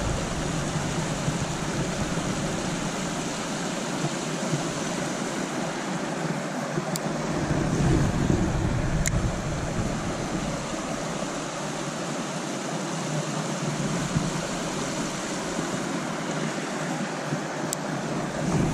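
Steady rush of a shallow creek running over a riffle, with a few brief sharp ticks.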